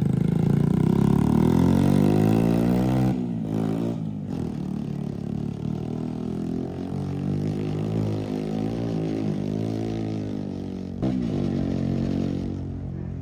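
Vehicle engine at high revs, the revs falling over the first three seconds and dipping briefly twice, then running on more steadily at lower revs. A sharp knock comes about eleven seconds in.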